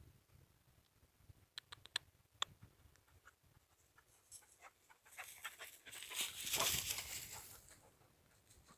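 Faint sharp snaps of twigs, a few single ones and then a denser crackling and rustling through dry brush peaking about six to seven seconds in.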